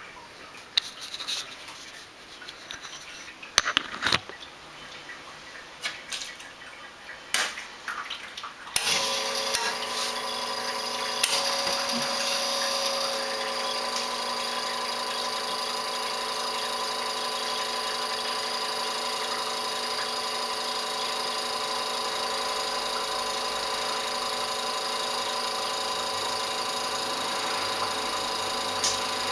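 A few scattered knocks and clicks, then about nine seconds in the SanRemo Capri espresso machine's pump switches on and runs with a steady hum while an espresso shot extracts.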